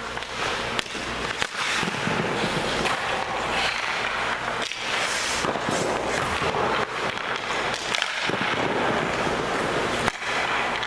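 Hockey skate blades scraping and carving across rink ice as the goaltender shuffles and drops into saves, with several sharp cracks of pucks being shot and stopped.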